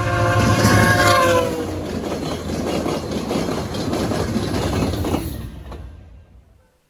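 Train horn sounding one held chord that sags slightly in pitch as it ends, over the heavy rumble of a passing train. The rumble carries on after the horn and fades out about six seconds in.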